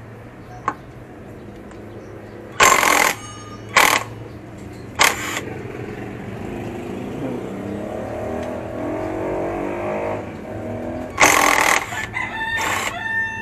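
Cordless impact driver running in five short hammering bursts as it loosens the Allen bolts that hold a scooter's front brake disc. A rooster crows near the end.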